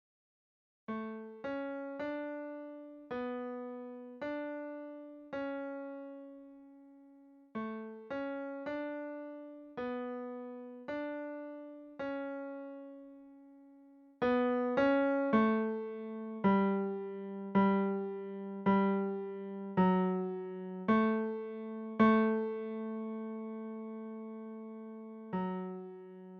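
Piano sound playing a single-note melody line in the tenor range, each note struck and left to fade: the tenor part of a choral piece, played alone. The line starts about a second in, pauses briefly near a third of the way through, and is louder with lower, longer-held notes in the second half.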